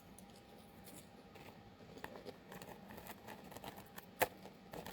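Faint crunching of crispy chicken nuggets and fries being chewed close to the microphone: a scatter of small crackles, with one sharper crunch about four seconds in.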